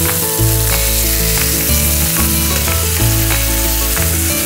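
Stuffed chicken breasts sizzling steadily in olive oil in a hot skillet, just flipped browned side up, with the burner just turned off. Background music with a bass line and a regular beat plays underneath.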